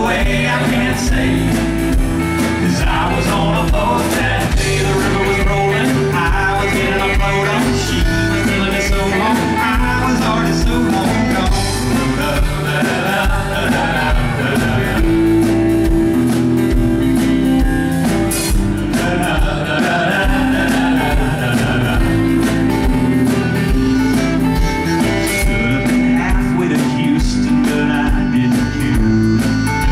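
Live band playing a country-rock song on guitars, bass and drums, with a man singing over it.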